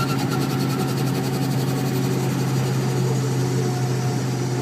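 Ford Super Duty's 7.3 Powerstroke turbo-diesel V8 running steadily, heard from inside the cab: a steady low hum with a fast, even diesel clatter.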